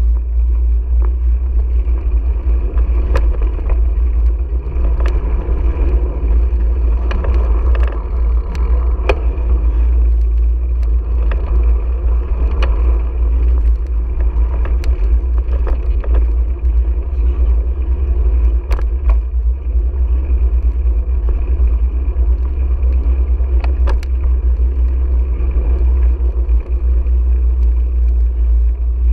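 Wind rushing over the microphone of a bicycle-mounted GoPro while riding: a steady, heavy low rumble, with occasional sharp clicks and knocks.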